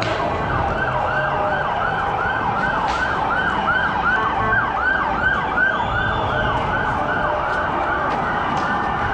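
Emergency-vehicle siren in fast yelp mode, wailing up and down about three times a second without a break. A second, slower and higher siren wail rises and falls faintly near the middle.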